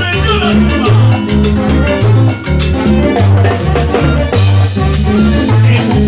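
Live Latin dance band playing: a stepping bass line under timbales and other percussion in a steady dance rhythm, with saxophones.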